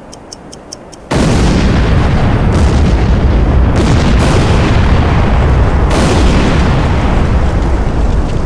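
Clockwork timer of a time bomb ticking about four times a second, then about a second in a huge explosion goes off. Its heavy rumble carries on, with several sharper surges of blast noise.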